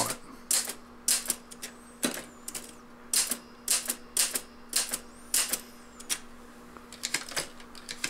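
1950 Remington SuperWriter manual typewriter being typed on, its typebars striking the paper on the platen in separate sharp clacks at an uneven pace, about two a second.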